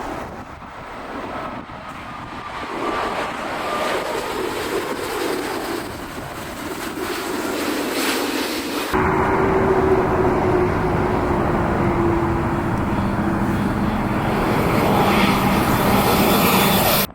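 Jet airliner engines: an Airbus A350's turbofans running as it passes. About nine seconds in there is an abrupt cut to another jet airliner, louder, with a steady engine hum that falls slightly in pitch.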